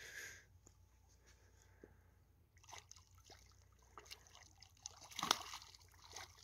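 Faint sloshing and dripping of water as a small hooked carp is reeled in close to the bank, with scattered small clicks and a louder splash about five seconds in.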